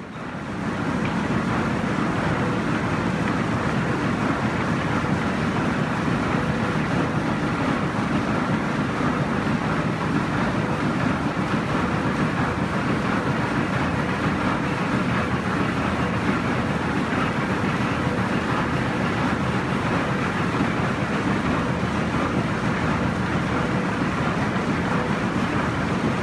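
Gold-ore stamper battery and processing machinery running: a loud, steady, dense clatter and rumble with no clear beat.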